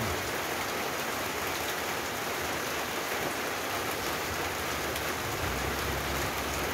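Steady rain falling, an even hiss with no breaks. A low rumble comes in about five and a half seconds in.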